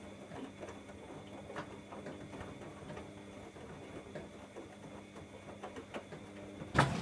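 Bosch Logixx 8 washing machine running mid-cycle: a steady low hum with soft, irregular ticks and patters from the turning drum. Near the end a sharp click, then a rush of hiss as water starts to run in.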